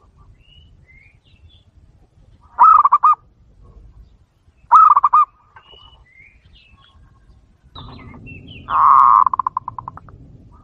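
Three loud, rattling bird calls, each a quick run of pulses, the last and longest fading out in separate pulses near the end. Faint high chirps come between them.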